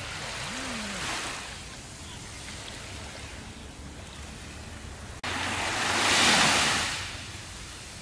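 Small waves washing up on a sandy beach: a gentle wash about a second in, then a louder one that starts abruptly, swells and runs up the sand around six seconds in, and fades within a second or so.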